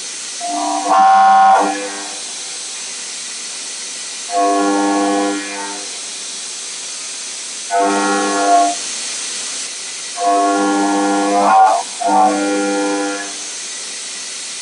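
Five-axis CNC gantry machining center milling a metal impeller with a carbide end mill spinning at 6,000 rpm: a steady hiss from the coolant nozzles, with a humming cutting tone that comes in for about a second at a time, five times, as the cutter bites into the blade surface.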